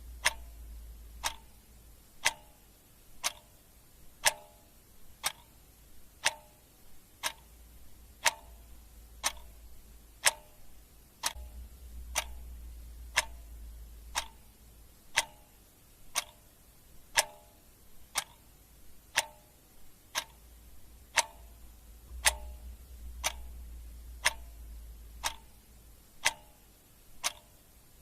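Clock ticking steadily, about one sharp tick a second, with a faint low hum that swells and fades a few times underneath.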